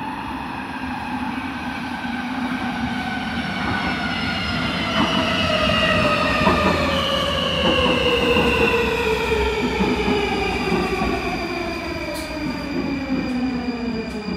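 Warsaw Metro train pulling into an underground station and braking to a stop. The whine of its electric traction motors falls steadily in pitch, in several tones at once, over the noise of the wheels on the rails. A few faint high clicks come near the end as it comes to rest.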